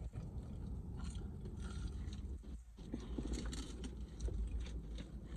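Close-miked chewing and mouth sounds of someone eating: irregular soft clicks and crackles over a steady low hum.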